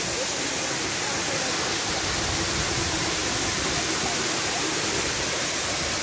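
Waterfall: a steady, even rush of falling water splashing down over rocks into a pool.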